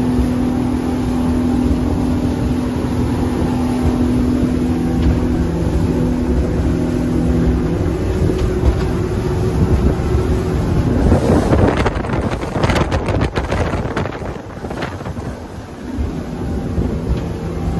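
Twin Suzuki outboard motors running steadily at cruising speed, with water rushing past the hull. Past the middle, a few seconds of wind buffeting the microphone cover the engine tone, and then it comes back.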